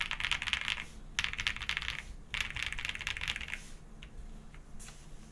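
Typing on a GrayStudio Space65 R3 custom mechanical keyboard with Gateron Creamsoda linear switches, PBT keycaps and an FR4 plate. Three quick flurries of keystrokes are followed by a few scattered single key presses near the end.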